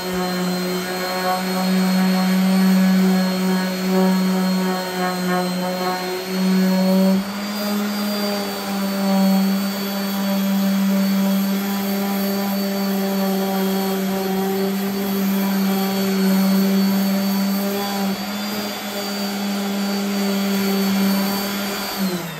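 DeWalt random orbital sander running steadily while sanding the edge of a walnut slab, with a hum that steps slightly higher about seven seconds in. Near the end it is switched off and its pitch falls as the pad spins down.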